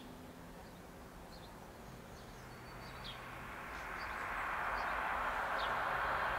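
Class 390 Pendolino electric train approaching at speed, its rushing noise rising steadily from about two seconds in and loudest at the end. Birds chirp now and then over it.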